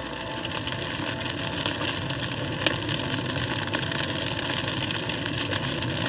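Wildfire burning through dry grass and forest: a steady rushing roar with lots of small crackles, growing a little louder.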